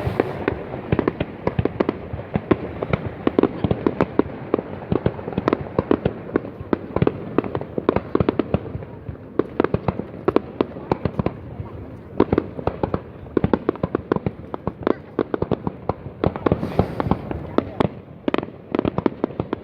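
Fireworks going off in a dense, irregular barrage of sharp bangs and cracks, several a second, thinning briefly near the end.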